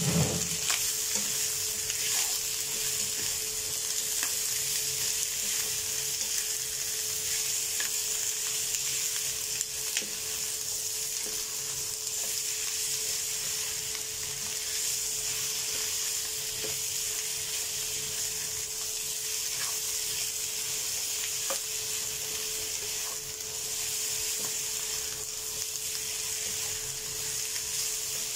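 Chicken wing tips sizzling steadily as they fry in a nonstick pan. A spatula stirring them makes occasional small scrapes and taps, with one louder knock right at the start.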